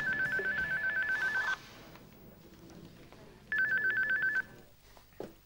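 Telephone ringing with an electronic warbling trill of two rapidly alternating tones. It rings twice: a ring of about a second and a half, then a shorter one near the end.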